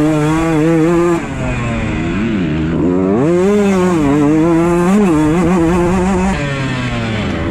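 Beta 125 two-stroke enduro motorcycle's single-cylinder engine under hard riding, revving up and down as the throttle is opened and shut between corners. The revs drop sharply about a second in and again near the end.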